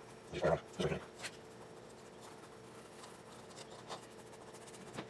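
Paintbrush stroking and dabbing acrylic paint onto a textured, Mod Podge-sealed EVA foam egg: faint, soft scratching of the bristles on the rough surface.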